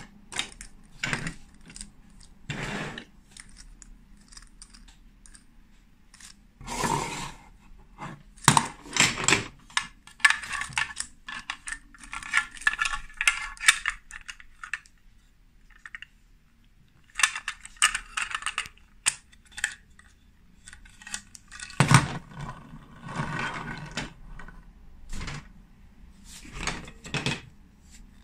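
Hard plastic Lego Duplo pieces clicking, knocking and rattling as they are handled and pressed together, in stretches of quick clicks with a few sharper clacks, the loudest about nine seconds in and again about twenty-two seconds in.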